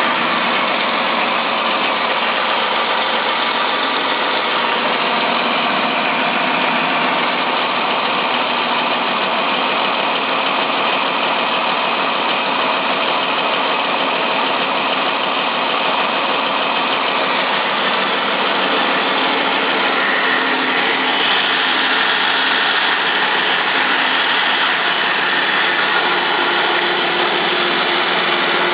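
2012 Jeep Wrangler's 3.6-litre Pentastar DOHC V6 idling steadily during warm-up after a cold start.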